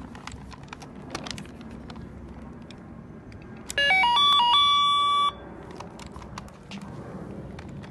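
LJN Computer Command Corvette toy car's electronic beeper sounding about halfway through: a quick run of beeps climbing in pitch, then one steady high beep held for about a second and cut off. Small clicks of the plastic toy being handled come before and after.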